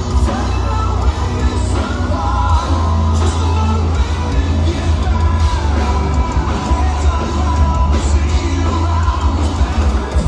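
Live heavy metal band playing: electric guitars, bass and drums with a male vocalist singing and yelling over them, the low end booming and dense.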